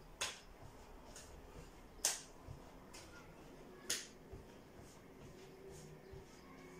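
Three sharp hand claps about two seconds apart, with fainter light taps between and after them.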